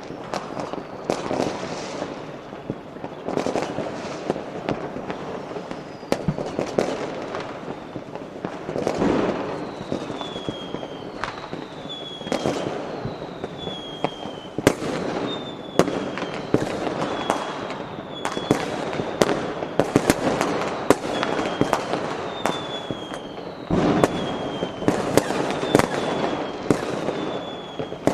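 Fireworks and firecrackers going off in quick succession, a dense run of sharp bangs and crackling. From about a third of the way in, high whistles falling in pitch sound about once a second among the bangs.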